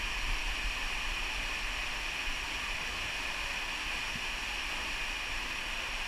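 Steady rush of running water that holds an even level throughout.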